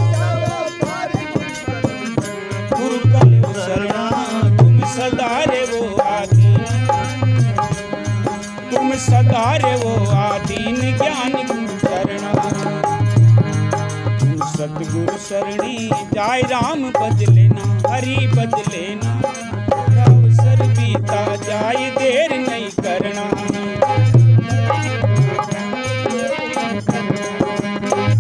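Devotional Hindi bhajan music: a wavering melody over a hand-drum beat, with deep sustained bass notes coming and going.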